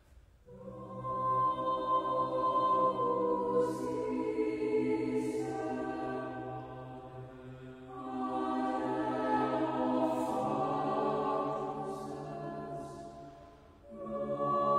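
Choir chanting a sung prayer in two long held phrases, with a brief pause near the end before the next phrase begins.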